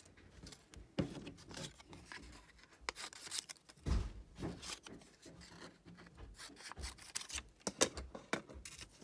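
Pieces of construction paper being handled and slid across a tabletop, making irregular rubbing and scraping strokes.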